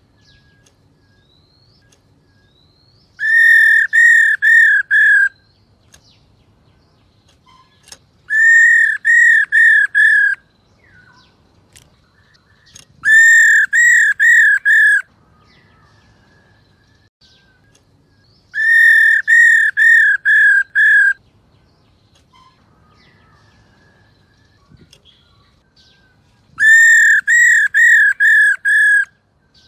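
Black-throated laughingthrush calling in five loud bursts, each a quick run of four to six clear, whistled notes that rise and fall, with a few seconds of quiet between bursts.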